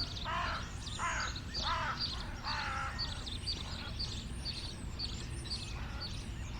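Birds calling: four harsh calls in the first three seconds, and a short high chirp repeating about twice a second throughout, over a steady low rumble.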